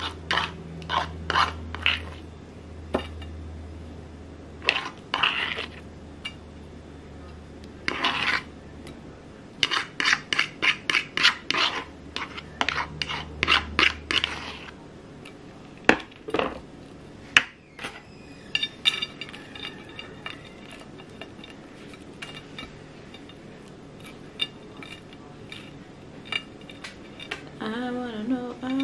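Metal cutlery clinking and scraping against a bowl and plate as mashed boiled egg is scooped and spread onto toast, with quick runs of taps in the first half.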